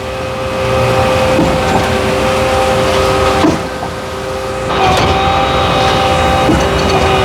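Concrete pump and mixer truck machinery running during a pour, a loud steady whine made of several held tones, with a few faint clicks; it grows louder about five seconds in.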